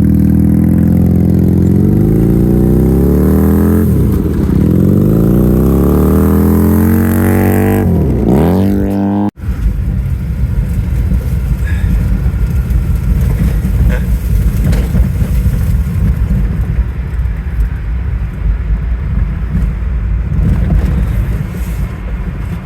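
Small vehicle engine on a modded lawn mower revving hard, its pitch rising and falling as it is driven. About nine seconds in it cuts off abruptly into a rough, fluctuating low rumble.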